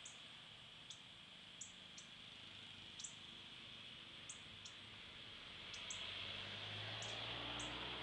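Northern cardinals giving short, sharp, high chip calls, about ten scattered irregularly: alarm chips at a cat outdoors. A steady high hiss lies underneath, and a low rumble swells from about six seconds in.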